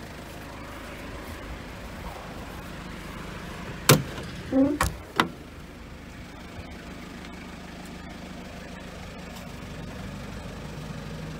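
Mazda Bongo Friendee turbo-diesel engine idling steadily, with the rear tailgate being unlatched and opened: a sharp clack about four seconds in and another about a second later.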